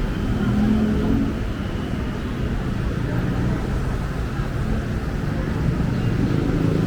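Busy city street ambience: a steady rumble of passing traffic with indistinct voices mixed in.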